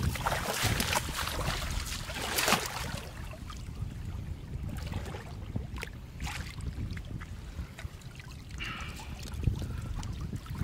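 Shallow water splashing and sloshing as hands sweep a hand net through it and lift it out, in irregular bursts that are loudest in the first few seconds.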